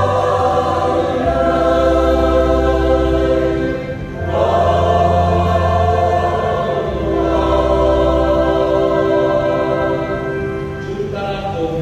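Church choir singing a Vietnamese Easter hymn in long held chords over a steady low bass, with a brief break between phrases about four seconds in.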